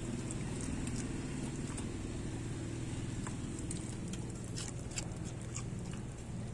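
Dog eating chunks of pork from a stainless steel bowl: scattered wet clicks and smacks of chewing and licking, with teeth and nose knocking the bowl, over a steady low hum.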